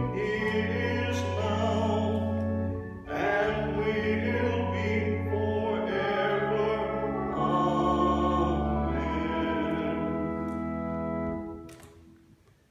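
Voices singing a hymn with organ accompaniment, in long held chords over sustained low bass notes. The final chord is released near the end and dies away in the church's reverberation.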